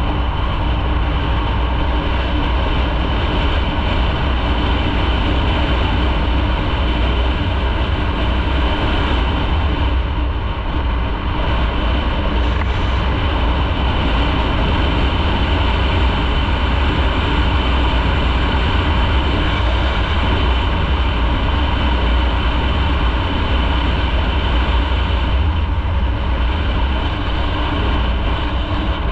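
Motorcycle running at a steady road speed, its engine note mixed with wind noise over a strong deep rumble, even and unchanging.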